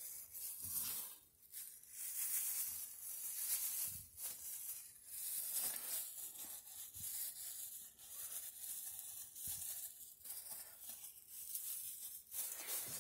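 Crunching of shredded cabbage and rustling of a disposable plastic glove as handfuls are pushed into a glass jar, packing it for sauerkraut. The sound comes in uneven spells with short pauses between handfuls.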